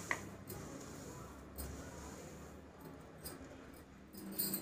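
Faint scraping and a few small clicks of roasted sesame seeds being scooped by hand from a steel plate into a steel mixer jar.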